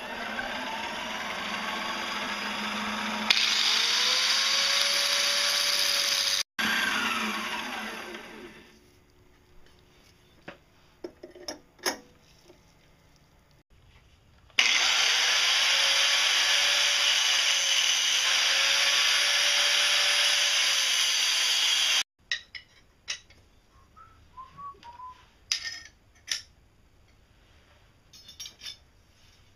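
Angle grinder grinding a steel part held in a lathe chuck: two long spells of grinding, the first winding down over a couple of seconds, the second stopping abruptly about three quarters of the way through. Between and after, light clicks and knocks of parts being handled.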